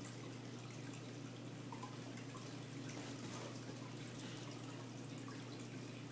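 Aquarium filter and pump running: water steadily trickling and bubbling with many small drips, over a constant low hum.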